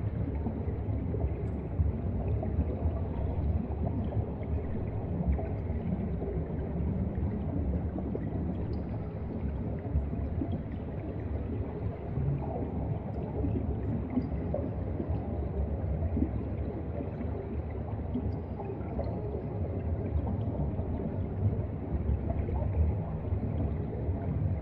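Underwater ambient noise picked up by a submerged camera's microphone: a steady low rumble and slosh of moving water, with a few faint ticks now and then.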